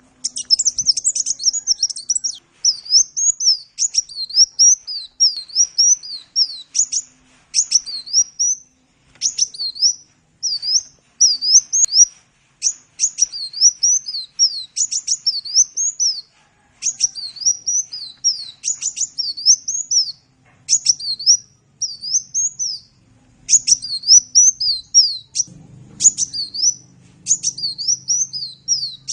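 Sunbird (the bird Indonesian keepers call 'kolibri') singing a fast run of high, thin twittering chirps that sweep up and down, in bursts a second or two long with short breaks between them.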